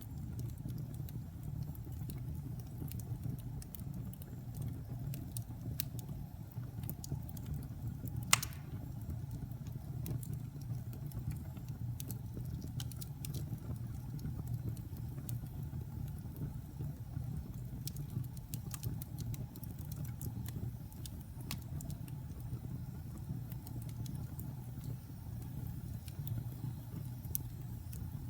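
Logs burning in a fireplace: a steady low rumble of the fire with scattered crackles and one loud pop about eight seconds in.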